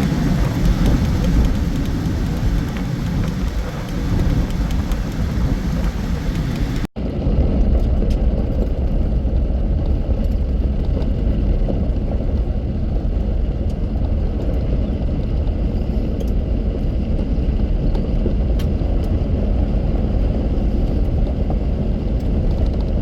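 Car driving on a road: a steady rumble of engine and tyre noise. A brief cut about seven seconds in changes it to a duller, lower rumble with faint ticks.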